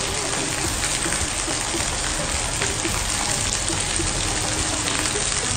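Heavy tropical rain pouring onto a wet brick-paved yard: a dense, steady hiss of drops and splashes.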